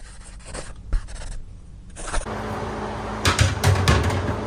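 Pencil scratching as it traces around a boat hatch on the aluminum jon boat's bench, then knocks and clatter as the hatch is lifted off and set down in the boat, loudest about three seconds in.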